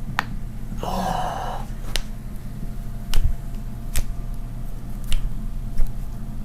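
Joints cracking under chiropractic adjustment: a series of about six sharp pops spread over several seconds, the strongest ones in the second half. A short burst of noise comes about a second in.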